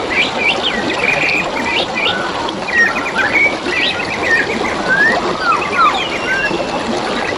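Several forest birds chirping and calling in quick succession, with short trills and falling whistles, over the steady babble of flowing water.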